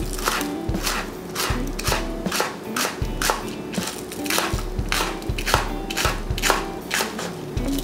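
Kitchen knife slicing green onion into thin rings on a cutting board, a crisp cut-and-tap about twice a second, with soft background music underneath.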